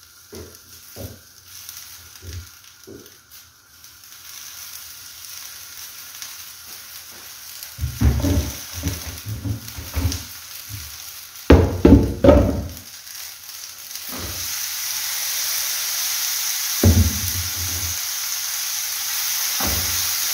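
Omena and tomato stew frying in a pan, with a sizzle that swells to a steady loud hiss about two-thirds of the way through. Before that come a few knocks and thumps, loudest around the middle.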